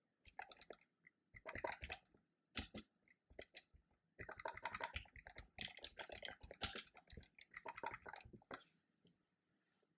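Typing on a computer keyboard: quick runs of key clicks in bursts with short pauses between them, stopping about a second before the end.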